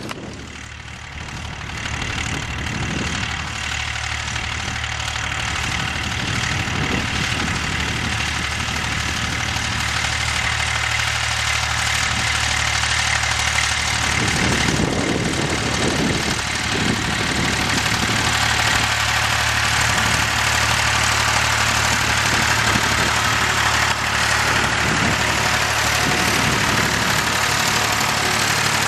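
Ursus C-360 tractor's four-cylinder diesel engine running steadily while pulling a seed drill, growing louder from a couple of seconds in as the tractor comes up and passes close by.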